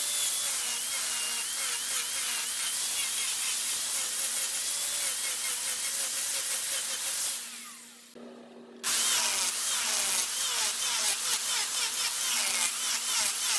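Wood lathe running with a turning tool cutting into the spinning wood: a steady motor hum under a loud, rough cutting hiss with wavering squeals. The cutting fades out about seven seconds in and comes back abruptly a second or so later.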